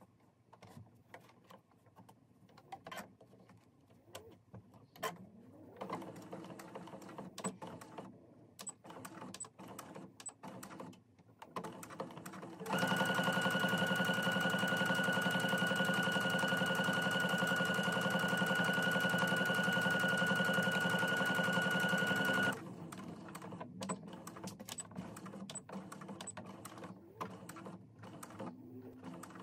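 Electric sewing machine stitching at a steady speed for about ten seconds, with a fast needle rhythm and a steady high motor whine, then stopping abruptly. Before and after the run there are scattered clicks and light handling of the machine and fabric.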